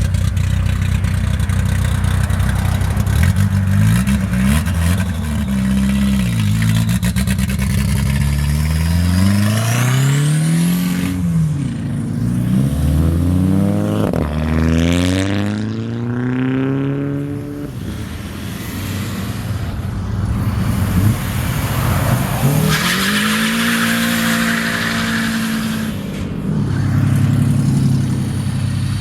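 Loud car engine revving hard and accelerating away, its pitch repeatedly climbing and dropping back as it goes through the gears. A harsh hiss joins in for a couple of seconds about two-thirds of the way through.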